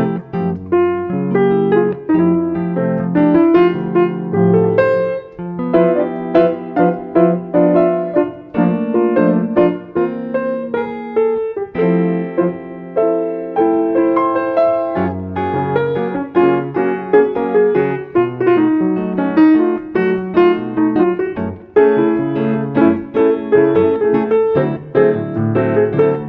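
Background music: a piano piece with many notes played in quick succession.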